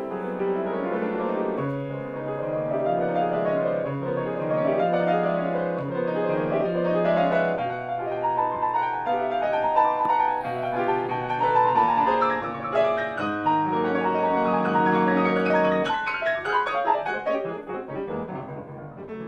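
Solo piano played live: slow, flowing music with deep bass notes changing every couple of seconds under a moving melody, turning to quicker figures near the end before fading out.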